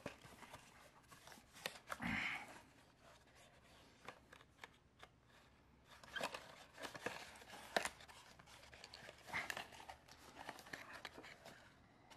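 Faint rustling and scraping of a small cardboard packaging box being handled, turned over and its end flap opened, with scattered light clicks and taps.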